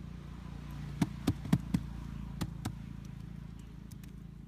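A hand slapping and patting wet mud, six quick pats: four in a row, then two more.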